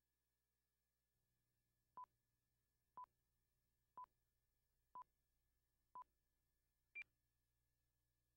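Countdown beeps on a broadcast tape leader: five short beeps one second apart, then a single higher-pitched beep a second later, counting down to the start of the programme.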